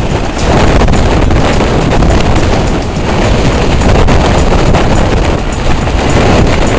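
Gale-force wind buffeting the microphone: a loud, continuous low rumble that flutters with the gusts.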